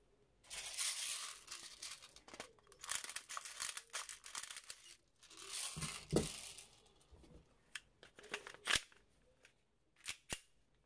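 Handling noise of a gas-blowback airsoft pistol and its magazine: three stretches of rustling, hissing noise, then several short, sharp clicks near the end as the pistol is taken in hand.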